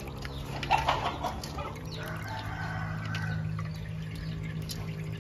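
Water dripping and splashing back into the bowl as soaked sticky rice is lifted out by hand, with a bird calling: a short loud call about a second in, then a longer held call. A steady low hum runs underneath.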